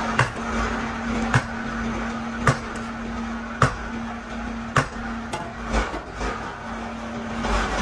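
Factory machinery running with a steady hum and a sharp metallic knock at an even pace of about one a second, the knocks becoming less regular near the end.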